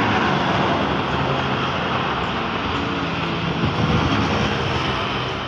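Large intercity bus passing close by: diesel engine running under a loud, steady rush of tyre and road noise, easing off slightly near the end.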